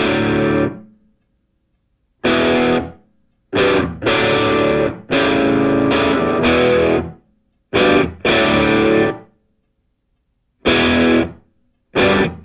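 Background music: a distorted electric guitar playing chords in stop-start phrases, with full silences of about half a second to a second and a half between them.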